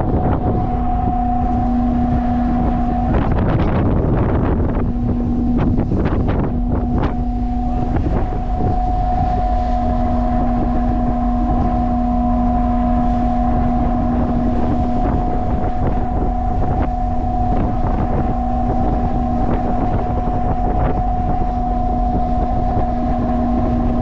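Steady hum of a ship's machinery, two held tones over a low rumble, with wind buffeting the microphone. A few louder rushes of noise come about three to seven seconds in.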